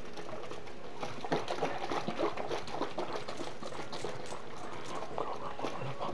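Water being poured into cranberry juice to water it down, an irregular splashing pour.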